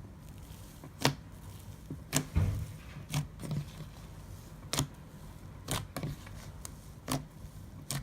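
A series of sharp, short clicks, roughly one a second but unevenly spaced, over a low steady hum.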